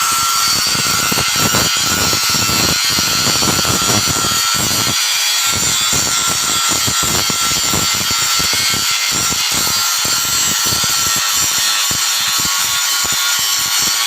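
Portable line boring machine cutting metal: a steady, loud grinding hiss with an irregular rattle underneath.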